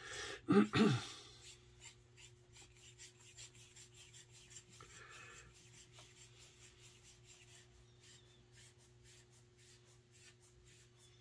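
Faint rubbing and light, scattered clicks of small air-rifle parts being handled and screwed in by hand, over a steady low hum.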